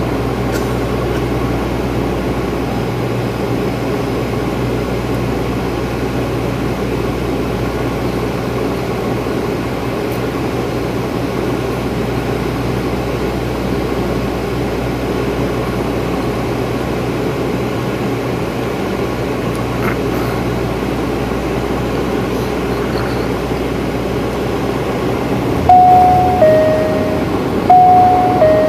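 Steady drone of a turboprop airliner's engines and propellers heard inside the cabin in flight, with a low even hum under it. Near the end the cabin chime sounds twice, each time a high note followed by a lower one.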